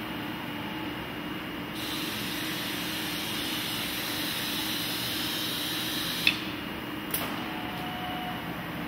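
Robotic workcell with a Stäubli robot arm and conveyor running: a steady mechanical hum, joined about two seconds in by a hiss that lasts some four seconds. The hiss ends in a sharp click, and a fainter click follows about a second later.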